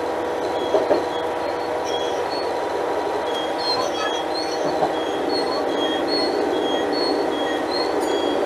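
Alstom Coradia Lint 41/H diesel multiple unit's engine running steadily with a constant hum, with a couple of brief knocks about a second in.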